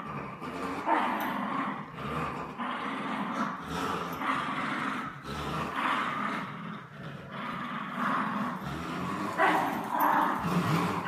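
Dogs growling continuously in play while tugging at a toy, a rough, rumbling growl that rises and falls every second or so. It is tug-of-war play growling, not aggression.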